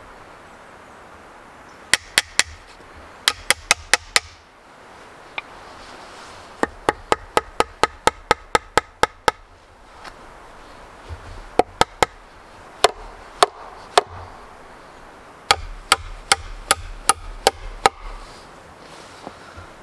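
Hammer driving nails into wood: runs of quick, sharp strikes, about four a second, broken by short pauses.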